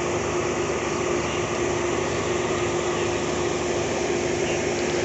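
Steady hum inside a stationary passenger train coach, from its air conditioning and onboard power equipment, with one constant mid-pitched tone.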